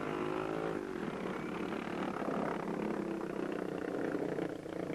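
Motorcycle engine passing close by, its note dropping over the first second, then running on steadily.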